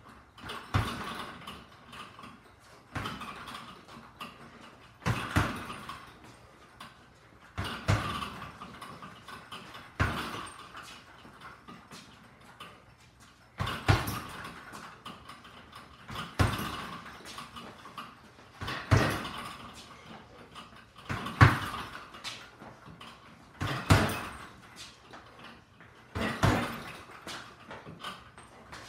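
A leather double-end bag struck by single gloved punches roughly every two and a half seconds. After each hit there is about a second of quieter knocks as the ball rebounds on its cords.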